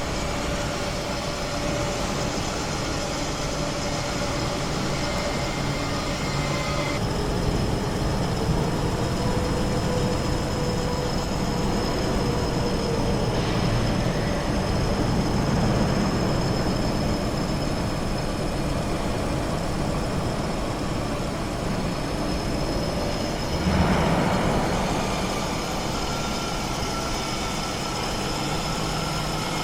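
Metal lathe running: a steady mechanical drone with several whining tones that shift a few times, and a brief louder swell about 24 seconds in.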